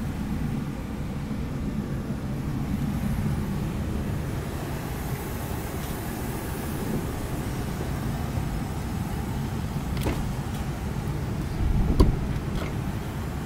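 Truck engine idling with a steady low rumble. There is a light click about ten seconds in and a louder knock near the end.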